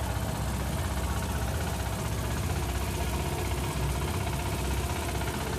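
A small passenger boat's engine running steadily, a fast even chugging, with the rush of water from the boat's wake.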